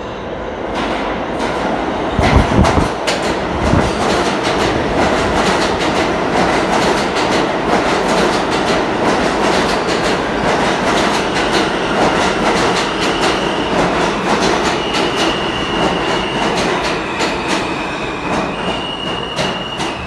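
New York City subway train arriving along the platform: a rising rumble about two seconds in with heavy knocks as it enters, then steady clattering of wheels over rail joints. Thin high wheel squeals come in over the second half.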